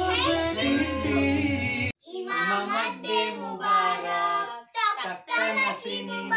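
Song with singing over a backing track with a strong bass that stops abruptly about two seconds in; then a child sings alone without accompaniment, in short phrases with brief pauses.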